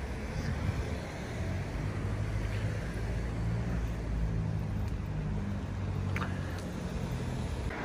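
Low, steady hum of road traffic on a wet town street, a vehicle engine's drone sitting underneath, with a couple of faint clicks about six seconds in.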